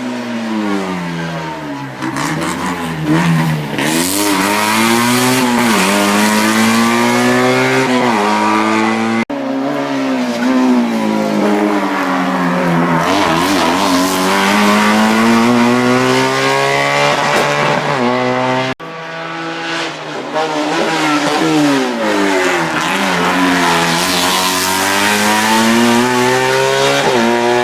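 Race car engines revving hard through the gears, pitch climbing and dropping back with each shift, in three separate passes that cut off abruptly twice.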